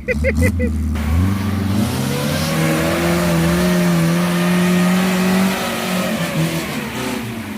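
Engine of an off-road vehicle revving up and held at high revs for a few seconds, then dropping back toward idle. A brief run of rapid chirps comes at the very start.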